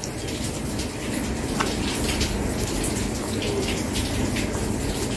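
Close-miked chewing and wet mouth sounds of a person eating rice and stew, with a small click about one and a half seconds in.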